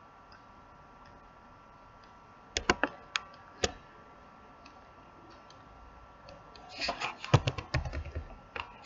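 Clicking of a computer keyboard and mouse: a few sharp separate clicks about two and a half to three and a half seconds in, then a quick run of key presses near the end.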